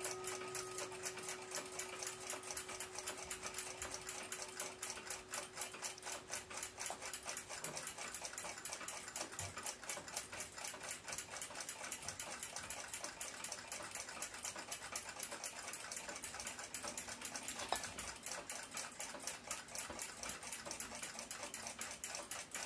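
A clock ticking rapidly and evenly, several ticks a second. In the first few seconds the low ring of the coiled steel gong rod dies away, and there is a single sharper click later on.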